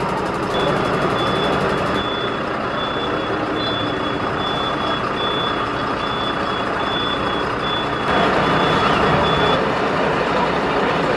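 Turntable ladder fire engine reversing: its reversing alarm sounds a steady series of high-pitched beeps over the running diesel engine. The beeping stops near the end.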